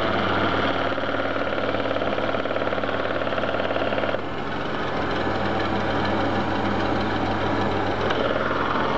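Chrysler Imperial V6 engine running with the A/C compressor working, a rattly mechanical clatter over the hum. About four seconds in, part of the sound cuts off abruptly as the compressor clutch cycles during the refrigerant charge.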